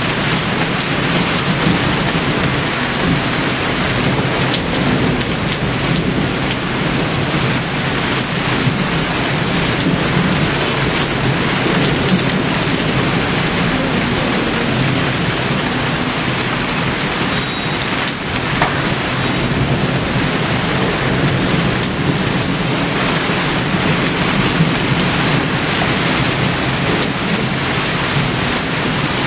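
Steady rain falling: a dense, even hiss with scattered sharp ticks of individual drops.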